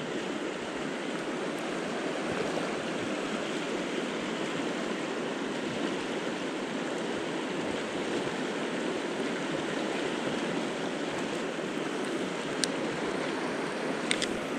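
Steady rushing of river water over rocks, with a few faint clicks near the end.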